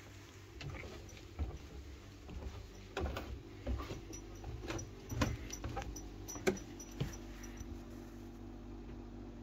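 Footsteps and creaks on old wooden floorboards: a dozen or so irregular knocks over about six seconds, ending near the end, over a steady low hum.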